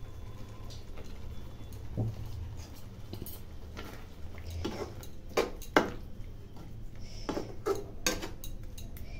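Steel spatula stirring thick tomato chutney in a non-stick kadhai, scraping and knocking against the pan in scattered, irregular clacks.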